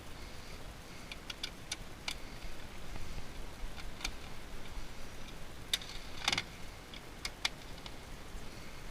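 Scattered light clicks and a brief clatter of small metal and plastic parts being handled as satellite receiver boxes are dismantled by hand, with the busiest rattle about six seconds in.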